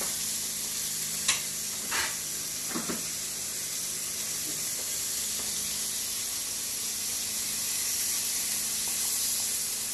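Small cubes of pork sizzling steadily in oil in a wok over a gas flame, the meat rendering its own fat. A few light knocks sound between about one and three seconds in.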